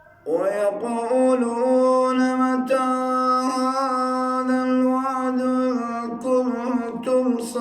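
A man chanting the Quran in tajwid, drawing out long, held melodic notes with small ornamental turns. The voice comes in about a quarter second in, after near silence.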